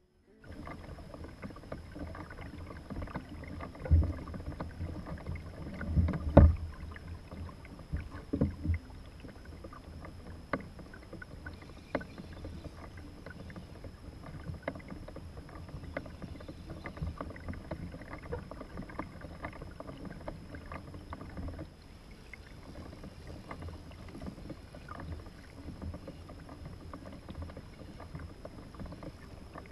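Small waves lapping and crackling against a plastic sit-on-top fishing kayak's hull, with a few loud knocks on the hull about 4, 6 and 8 seconds in.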